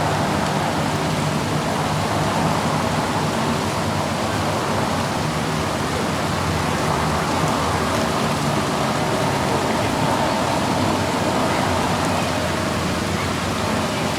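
Steady noise of a moving car: an even rush of tyre and road noise with a low, steady engine hum beneath it.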